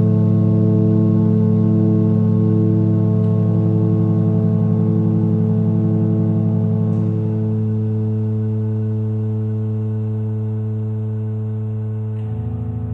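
Droning electronic music: a chord of sustained, organ-like held tones that shifts about seven seconds in, with a new low note entering near the end, all slowly growing quieter.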